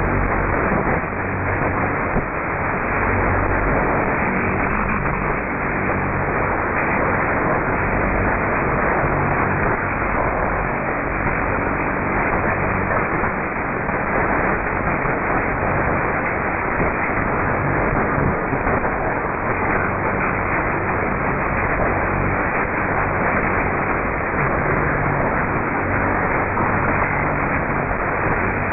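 Shortwave receiver tuned to 3979 kHz on AM: steady hiss and static with a low hum underneath that fades in and out. It is a strange humming noise on the frequency, which the listener suspects comes from a faulty transmitter.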